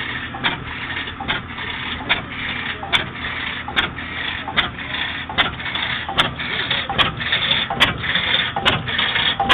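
Circa-1870 Bessemer half-breed oilfield engine running, a sharp click about every 0.8 seconds over a steady mechanical noise.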